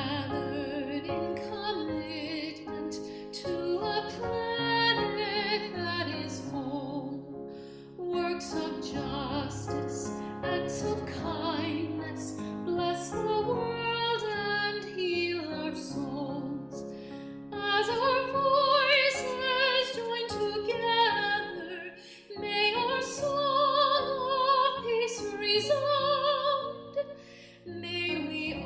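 A solo voice singing with a wide vibrato, in an operatic style, over piano accompaniment.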